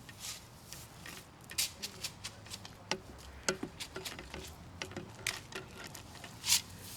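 Shovel scraping and dirt being tossed back into a hole around a buried pipe: irregular short scrapes and patters of soil and grit, the loudest near the end.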